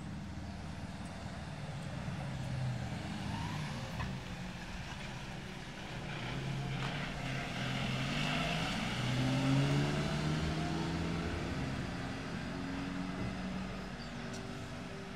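A motor vehicle's engine going past, louder toward the middle and then fading, its pitch stepping up and down as it changes speed.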